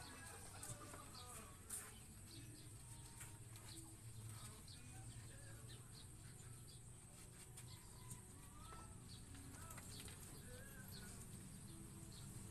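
Near silence with faint, scattered short squeaky calls from an animal and a few light clicks over a low hum.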